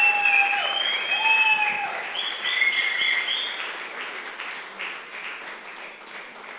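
Audience applauding and cheering, with many high cries and whoops over the clapping for the first three seconds; the applause then dies down steadily.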